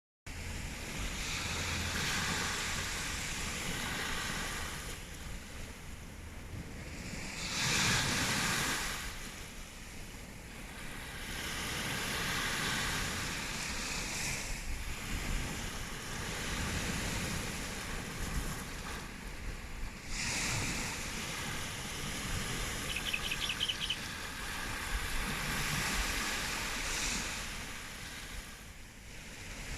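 Ocean waves washing onto a sandy beach: a steady hiss of surf that swells and ebbs, with waves breaking loudest about 8 seconds in and again about 20 seconds in.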